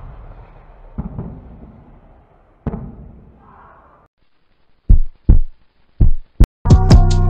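The rumble of a Milan missile's explosion dying away, broken by two dull thuds about one and almost three seconds in. After a moment of silence come several loud, sharp booming hits, and then loud rock music starts near the end.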